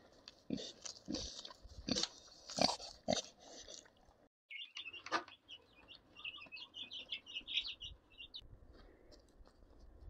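A pig grazing, with a run of sharp crunching and snuffling noises for about four seconds. After a brief drop to silence, young chickens give a string of quick high chirps for about four seconds.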